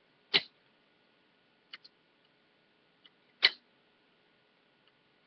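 Two sharp taps about three seconds apart, with a few faint ticks between them, from origami paper being creased and pressed flat on a tabletop with a thin wooden stick and fingertips.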